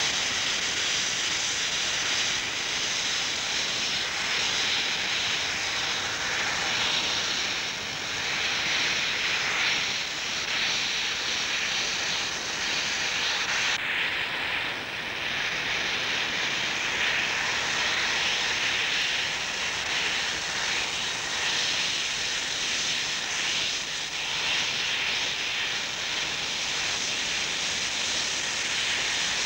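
South African Railways class 15F steam locomotive hissing loudly and steadily with escaping steam.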